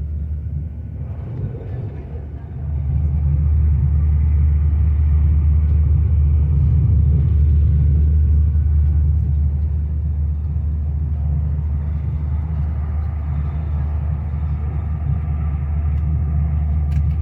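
Steady low rumble of a moving train, heard from inside the passenger carriage, growing louder about two and a half seconds in.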